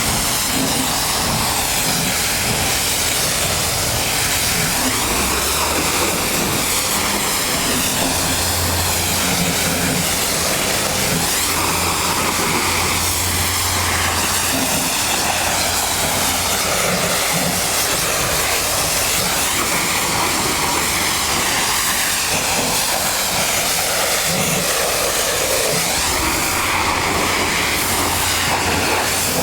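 Pressure washer spraying: a loud, steady hiss of the high-pressure water jet, with the washer's machinery humming low underneath.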